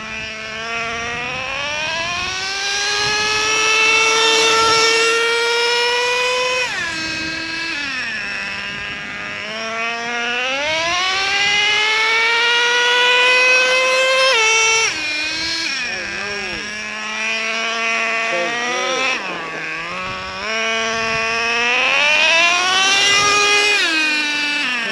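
Traxxas Revo 3.3's TRX 3.3 two-stroke nitro engine, new and being broken in. It idles, then climbs smoothly in pitch over about five seconds, three times, dropping back to idle after each climb.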